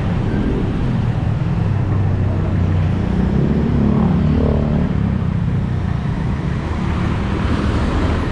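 Engines of passing street traffic running close by: motorcycles, a motorcycle tricycle, a delivery truck and a jeepney. It is loudest around four seconds in, as a motorcycle pulls alongside.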